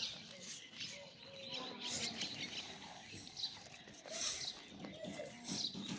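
Farmyard sounds: birds chirping, with a few short, crackly noisy bursts and brief animal calls.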